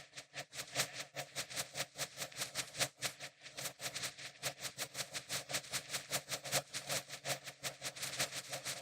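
Fireworks crackling: a fast, unbroken run of small sharp pops, several a second, over a steady underlying tone.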